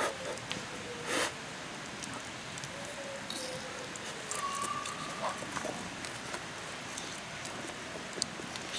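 Small wood and charcoal fire under a mesh grill crackling faintly, with scattered pops and a sharper click about a second in. A few thin, faint whistling tones come and go over it.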